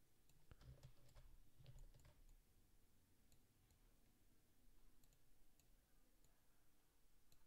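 Near silence: room tone with a few faint computer mouse clicks, most of them in the first two seconds and a few more scattered later.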